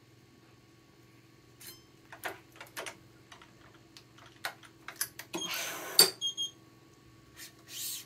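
Clicks and taps of clamps and string being handled on an electronic badminton stringing machine, over a steady low hum. A little past the middle a short rasp, like string drawn through, ends in a sharp loud click, followed by brief high electronic tones; another short rasp comes near the end.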